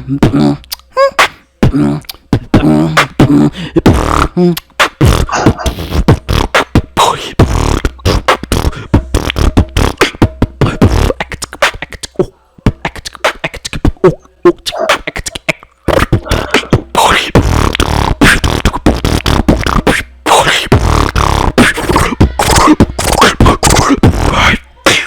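Beatboxing: fast runs of mouth-made kick, snare and click sounds, with hummed low bass tones under the first few seconds, broken by a few brief pauses.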